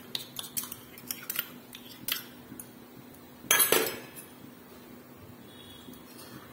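Steel spoons clinking against a stainless steel mixing bowl: a few light taps in the first two seconds, then a louder clatter about three and a half seconds in. A faint steady hum sits underneath.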